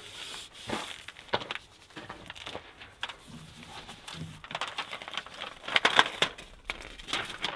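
Crinkling and crackling of Vycor Plus self-adhered window flashing tape and Tyvek house wrap being handled and pressed into place over a window, in irregular clusters, busiest about six seconds in.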